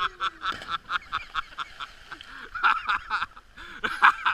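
People's voices calling out in loud, short bursts, with no clear words.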